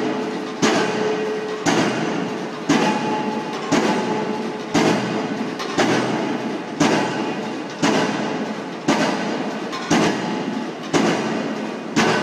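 Pile-driving rig's hammer striking a pile in a steady rhythm, about one blow a second. Each blow is a sharp metallic bang that rings and fades before the next.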